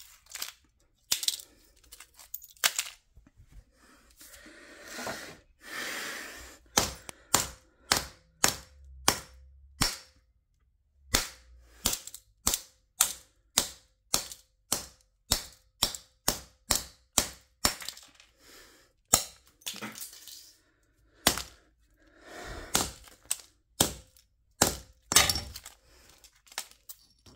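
Repeated hard blows of a tool on an LG Nexus smartphone, each a sharp crack, coming about one to two a second with a few short pauses, as the phone's glass and casing break apart.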